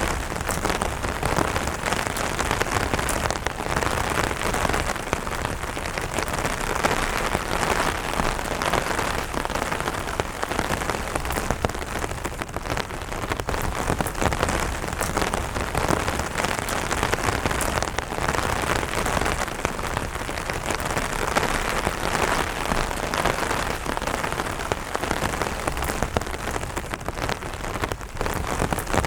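Steady light rain pattering on an umbrella canopy: a dense even hiss of drops with many sharper single drop hits.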